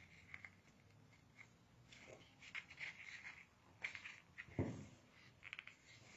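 Faint rustling and small clicks of fingers tying a ribbon into a double knot against a cardboard box blank, with one soft thump about four and a half seconds in.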